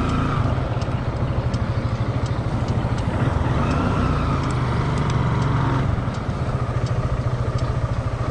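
Small motorcycle engine running while the bike is ridden slowly, with a steady rapid low pulsing. It eases off slightly about six seconds in.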